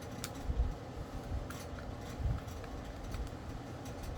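Light clicks and soft knocks of a tiny Phillips screwdriver and hands working at a laptop's small battery screws.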